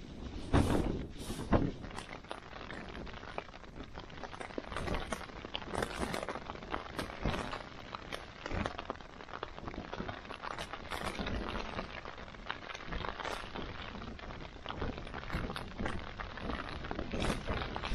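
Tipik-tentes Aston tent fabric flapping and crackling in gusting wind, heard from inside the tent, with stronger gusts about a second in and near the end.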